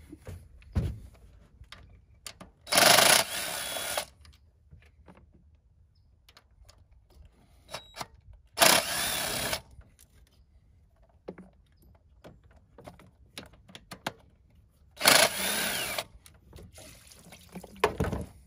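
A handheld cordless power tool run in three bursts of about a second each, with small handling clicks between, spinning out the thermostat housing bolts.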